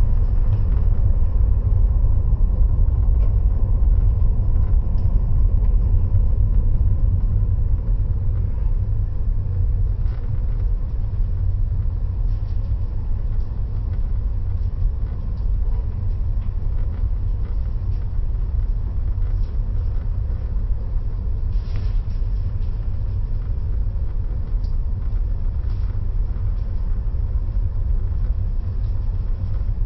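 A steady, loud low rumble with no clear pitch, easing a little after about eight seconds.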